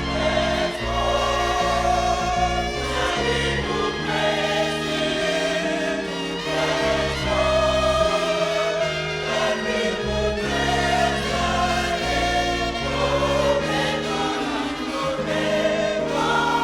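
Gospel choir singing with instrumental backing and a steady bass, playing as the programme's closing music.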